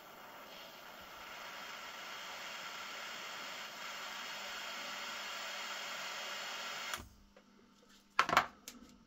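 Butane jet-torch lighter burning with a steady hiss that cuts off abruptly about seven seconds in. A brief knock follows about a second later.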